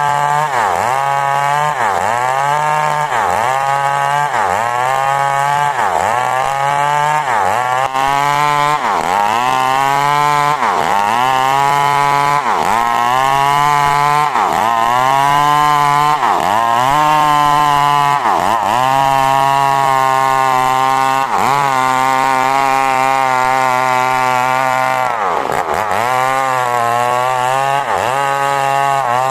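Two-stroke chainsaw cutting coconut wood, its engine note repeatedly dipping and climbing back, about once a second, as the chain bites and frees. A steadier stretch comes about three-quarters of the way through.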